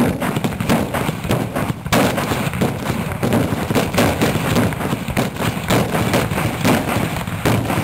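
Carbide-loaded milk churns being fired one after another: a rapid run of loud bangs and cracks, each blast driving a ball out of the churn's mouth.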